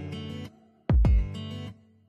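Background music: strummed guitar chords in short separate phrases, with a deep drum beat about a second in.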